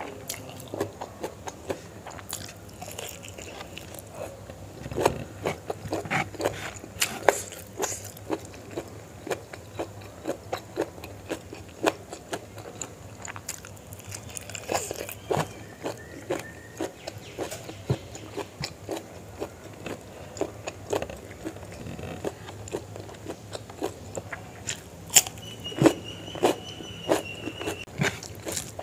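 Close-up mouth sounds of a person chewing rice and chicken liver and gizzard curry eaten by hand, with many irregular sharp clicks.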